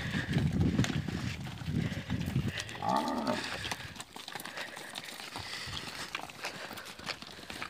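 Zebu cattle mooing, loudest in the first three seconds, over the ticks and scuffs of a small herd's hooves and people's steps on a dirt track.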